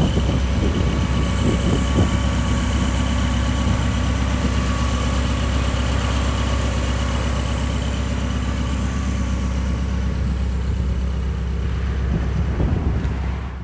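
1963 Ford Fairlane's 221 cubic-inch V8 idling steadily with a low, even hum, heard close to the open engine bay; it fades out at the very end.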